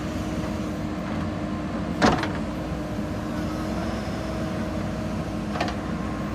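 JCB 3DX backhoe loader's diesel engine running steadily with a constant hum, with one loud sharp knock about two seconds in and a fainter knock near the end.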